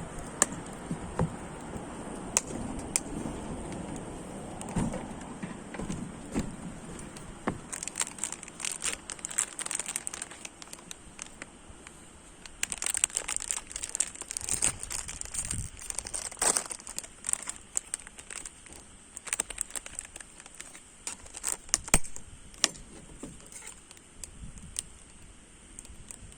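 Firewood burning in a stainless-steel shichirin, crackling with frequent sharp pops over a steady hiss; the popping grows busier partway through.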